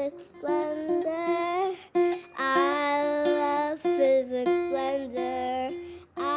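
Upbeat outro jingle: a high sung voice in short repeated phrases over ukulele-like plucked strings.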